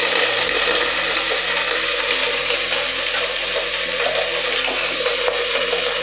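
Chopped potatoes being dropped by hand into an aluminium pressure cooker, with a few soft knocks, over a steady rushing hiss of kitchen noise.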